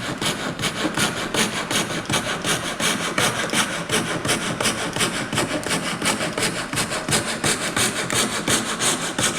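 Coping saw cutting through a wooden board with fast, even back-and-forth strokes, the blade being turned to follow a curve.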